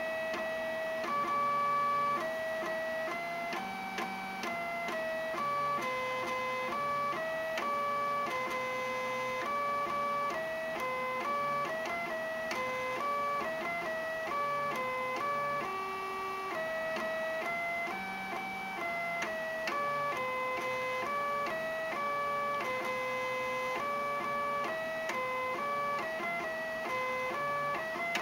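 HP ScanJet 5p flatbed scanner's stepper motor playing a melody as its scan carriage moves: this is the built-in tune the scanner plays when powered on with the Scan button held. It is a steady run of buzzing notes that step up and down in pitch, changing about every half second.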